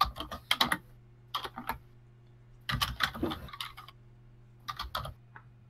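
Computer keyboard typing in about four short bursts of clicks with pauses between them, over a faint steady hum.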